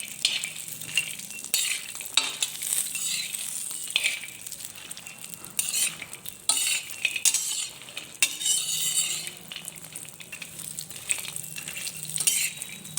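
Cashews, almonds and walnuts sizzling as they roast in hot ghee in a kadhai. They are stirred all the while, with repeated spoon scrapes and clinks against the pan, to roast them only to a light brown.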